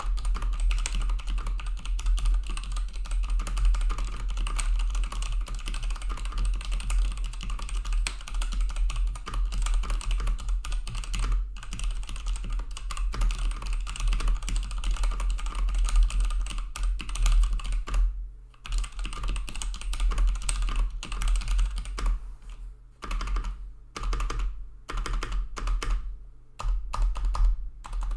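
Typing on an MSI Vigor GK41 mechanical keyboard: a dense, fast run of key clacks that stops briefly about two-thirds of the way through, then goes on in shorter spurts. A steady low hum runs underneath.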